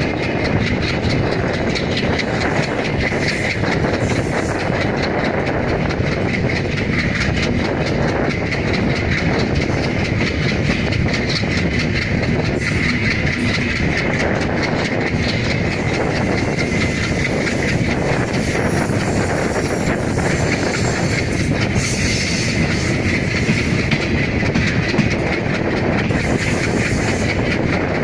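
WDM-3A diesel-electric locomotive accelerating at high revs: its 16-cylinder turbocharged ALCO engine runs steadily with a high turbocharger whistle, over the rapid clickety-clack of the train's wheels on the rail joints.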